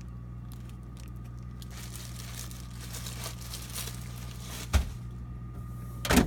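Faint crinkling and handling of plastic-wrapped produce being moved in a refrigerator, over a steady low hum, with one sharp knock near the end.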